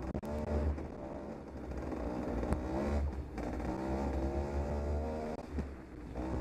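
Off-road motorcycle engine running hard, its pitch rising and falling several times as the throttle is opened and closed.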